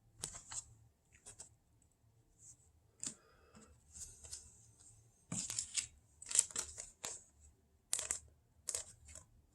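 Trading cards being handled and slid into soft plastic card sleeves: short crinkles and scrapes of thin plastic and card, coming in quick bunches, loudest about five to seven seconds in.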